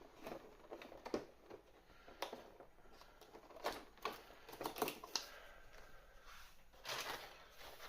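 Faint handling of cardboard advent-calendar packaging: scattered light clicks, taps and crinkles as a calendar door is pulled open and a small die-cast car is worked out.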